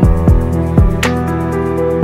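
Background music: soft held chords over a beat, with low drum thumps in the first second and a sharp snap about a second in.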